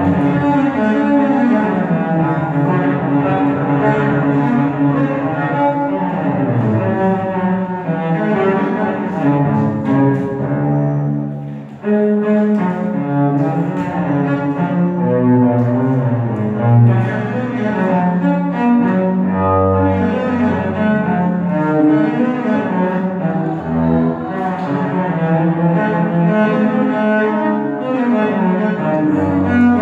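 Cello music: bowed notes moving through a slow line, with a brief dip in the playing about twelve seconds in before it picks up again.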